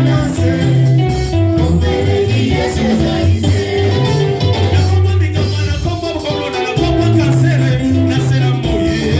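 Gospel worship music played by a band, with a prominent moving bass guitar line, guitar and singing.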